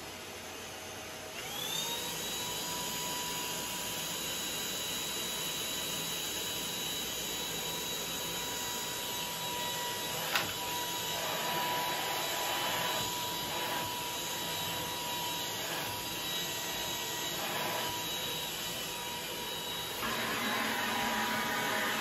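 Ultenic U10 cordless stick vacuum's 250 W brushless motor switched on, whining up to speed about a second and a half in, then running steadily with a high whine over the rush of air. There is one sharp click about ten seconds in, and near the end the rush of air gets louder and fuller.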